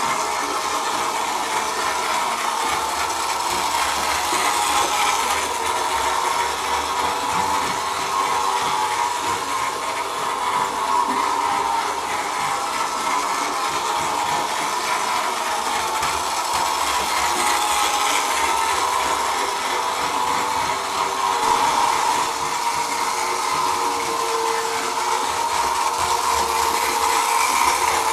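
Märklin gauge 1 BR 80 model steam locomotive running around its track: the steady whir of its electric motor and gears, with the wheels running on the metal rails.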